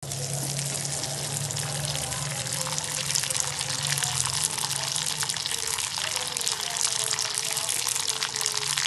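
Rice fryums (arisi vathal) sizzling and crackling steadily as they puff up in hot oil in an iron kadai, stirred with a perforated metal skimmer.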